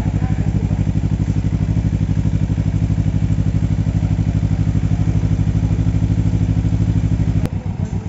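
Kawasaki Z250 parallel-twin idling steadily through a Termignoni slip-on muffler fitted with a dB killer, with a quick, even exhaust pulse. A sharp click comes about seven and a half seconds in, after which the engine sound turns quieter and uneven.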